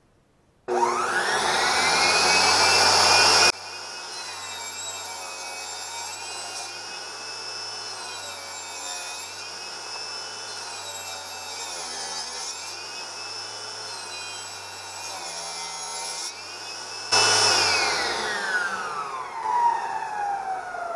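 Table saw switched on, its motor spinning up with a rising whine. It then runs while the blade cuts, the pitch sagging now and then under load. About 17 seconds in it is switched off and winds down with a long falling whine.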